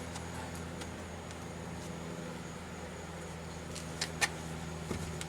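Metal tools clinking twice in quick succession about four seconds in, with a fainter clink shortly after, as a breaker bar and socket are handled on a car's lug nuts. A steady low hum runs underneath.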